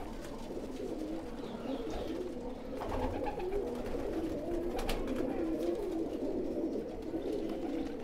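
Several domestic pigeons in a rooftop loft cooing continuously, their low calls overlapping. A couple of brief clicks come about three and five seconds in.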